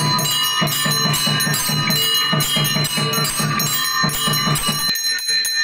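Brass hand bell rung rapidly and continuously in a Hindu puja, with a quick steady drum beat under it that stops about five seconds in.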